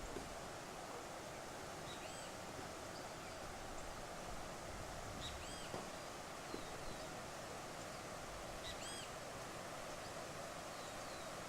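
Birds calling over a steady rushing background noise: a few short arched calls, three of them more prominent about two, five and nine seconds in, with smaller falling chirps between.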